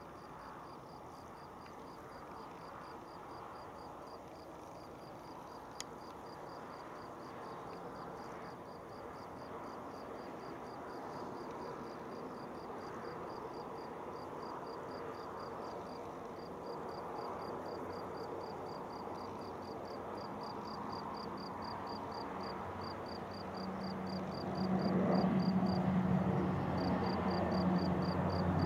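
ATR 72 turboprop on its takeoff roll and climb-out: the engine and propeller sound builds steadily, then about 24 seconds in swells into a loud steady propeller drone with a low hum. Insects chirp in a fast, even pulse throughout.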